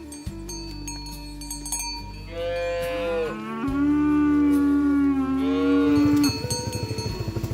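A cow mooing: one long, pitched moo that rises and falls, starting about two seconds in, with cowbells clinking and ringing before it. Near the end a steady, fast pulsing like a small engine begins.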